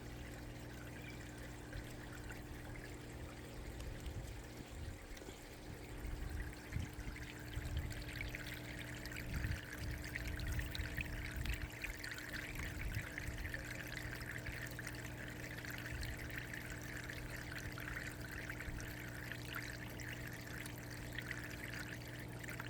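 Water pouring and trickling into a flood-and-drain grow bed as the pump refills it, growing louder about eight seconds in, over a steady low hum.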